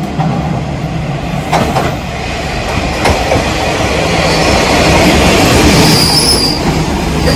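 A KiHa 40 series diesel railcar pulling into the station, its diesel engine drone and wheel rumble growing louder as it draws alongside. A high squeal rings out about four to six seconds in as it brakes to a stop.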